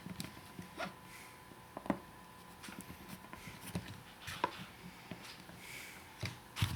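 Scattered small clicks and taps, half a dozen spread irregularly, as hands handle and work apart the plastic and metal pivot mechanism of a car sun visor.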